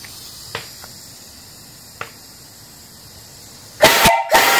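2.5-inch brass steam whistle on a live-steam fire-tube boiler, blown by its pull cord: a short toot near the end, a brief break, then a long loud blast sounding several tones at once. Before it there is a faint steady steam hiss and a couple of light clicks.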